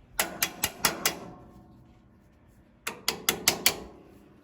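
Sharp metal clicks from hand tools working the Farmall 450's PTO lever linkage: two quick runs of about five clicks each, roughly two seconds apart.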